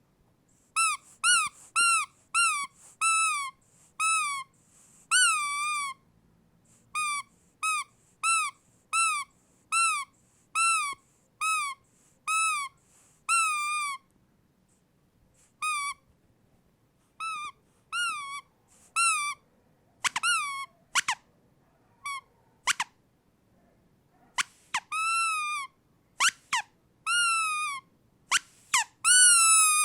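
Rubber squeaky dog toy squeezed again and again, a string of short pitched squeaks that rise then dip, about one or two a second with a few pauses and some quicker, sharper squeaks in between.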